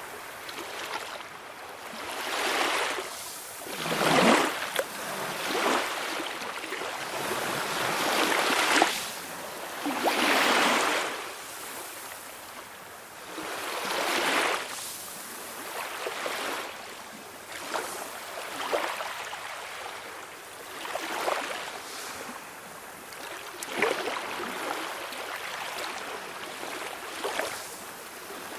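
Small sea waves washing in and running back over the shore, a hissing wash that swells and fades every few seconds, with light crackling as the water drains away.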